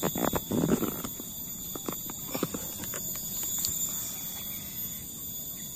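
Irregular footsteps and rustling of someone walking through vegetation for the first two and a half seconds, over a steady high-pitched drone of insects.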